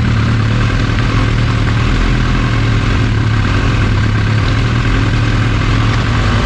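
Kawasaki H2's supercharged inline-four running steadily at low, even revs through an SC Project aftermarket exhaust, heard through a GoPro's built-in microphone.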